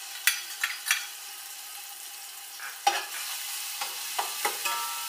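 Ginger-garlic paste sizzling in hot oil in a metal pot. A metal spatula scrapes and knocks against the pot several times as it is stirred.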